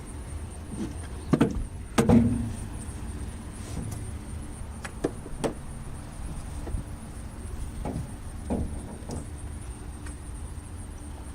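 Scattered knocks and clinks of tie-down strap hooks and buckles being handled against a pickup truck bed, over a steady low rumble. The loudest knock comes about two seconds in.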